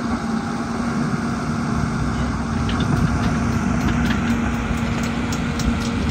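CASE CX130D tracked excavator's diesel engine running steadily while the machine slews and works its boom, with a run of light clicks from about halfway in.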